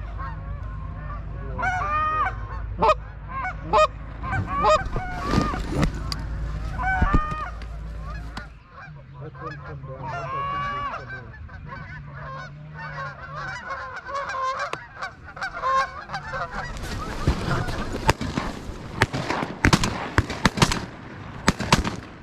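A flock of geese honking loudly and repeatedly as they come in over the decoys. About seventeen seconds in, a rapid string of shotgun shots cracks out over the pond and runs to the end.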